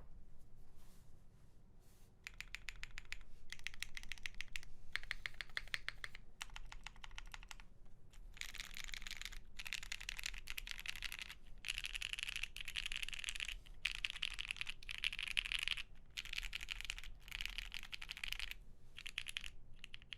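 Bakeneko65 mechanical keyboard with factory-lubed Red Jacket linear switches, a POM plate and PBT keycaps, typed on in fast runs of keystrokes separated by short pauses. A few scattered keystrokes come first, then denser runs, and louder ones from about eight seconds in.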